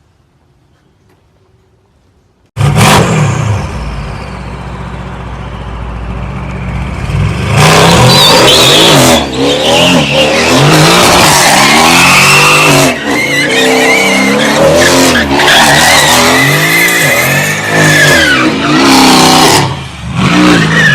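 Near silence, then a car engine comes in suddenly and loud about two and a half seconds in; from about eight seconds it revs up and down hard while the tyres skid.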